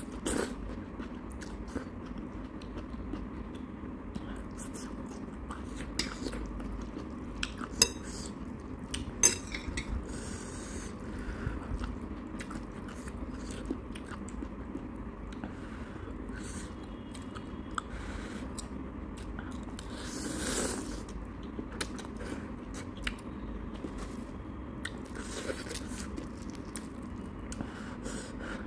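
Close-up eating sounds of instant ramen noodles: chewing and slurping, with metal chopsticks clicking against the bowl. Two sharp clicks about eight and nine seconds in are the loudest, and a longer slurp comes about twenty seconds in.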